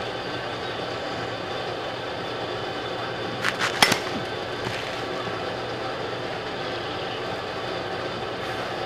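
A bat cracks against a baseball in a batting cage about four seconds in, just after a fainter sharp knock. A steady hum runs underneath.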